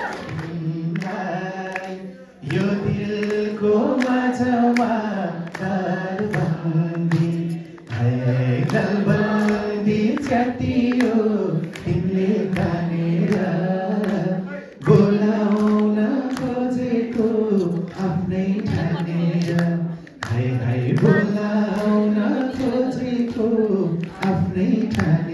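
A man singing a song in long held melodic phrases, with a steady beat of sharp taps behind the voice.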